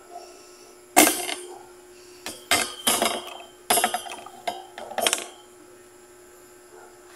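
Sharp knocks and light metallic clatter of stand-fan parts being handled and fitted: the wire guard and a plastic locking ring knocking together. There are several knocks, the loudest about a second in, the rest between about two and five seconds in.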